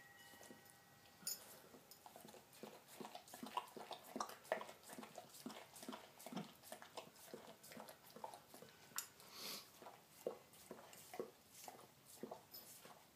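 Husky mother licking a newborn puppy clean, giving faint, irregular wet licking and smacking sounds.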